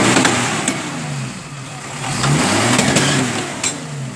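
Off-road jeep's engine revving up and easing off twice as it crawls through a rutted dirt trail, with a few short sharp knocks.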